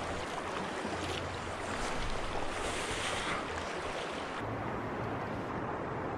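Steady rushing of a river's current, with wind noise on the microphone. About four seconds in the sound turns duller as the higher hiss drops away.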